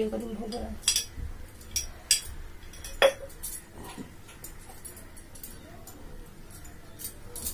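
A handful of separate light clinks and taps of small metal and glass puja vessels being handled and set down on a hard floor. The loudest comes about three seconds in, and it goes quieter after about four seconds.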